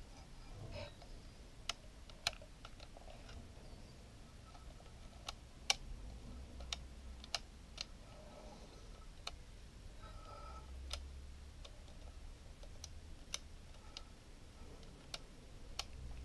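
Small, sharp, irregular clicks, about a dozen, from a Lomography LC-A+ compact film camera as it is handled and its plastic parts worked by hand.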